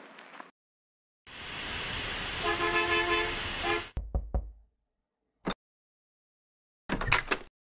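Street traffic noise with a car horn honking, which cuts off suddenly. Then a few knocks on a wooden door, a single sharp click, and a short clatter of clicks near the end.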